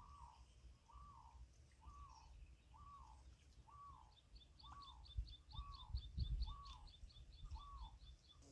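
Faint birdsong: one bird repeats a short arched whistled note about once a second, and from about halfway another adds a fast run of high chirps. Low wind rumble on the microphone gusts up in the middle.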